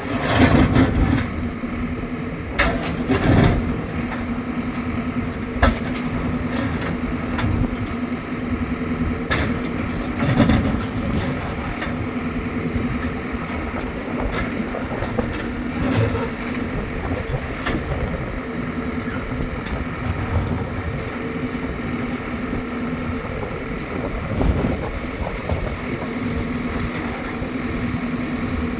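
An engine running steadily at a constant pitch, with occasional sharp knocks.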